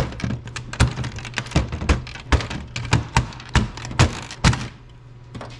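A dozen or so sharp, irregular plastic clicks and knocks as the gauge needles are pulled off a 2003–2007 GM truck instrument cluster's stepper-motor shafts and the cluster is handled on the bench. The clicks stop about four and a half seconds in.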